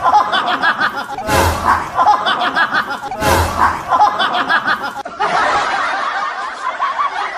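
Laughter: snickering and chuckling in short choppy bursts. A low thump sounds about a second in and again about two seconds later.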